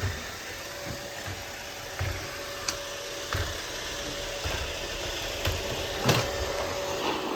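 Roomba robot vacuum running, a steady whirring hum from its vacuum motor and brushes, with a few short knocks, the loudest about six seconds in.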